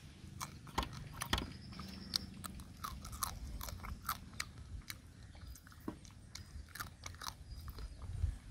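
A person biting and chewing cooked crab, the shell cracking in irregular sharp crunches.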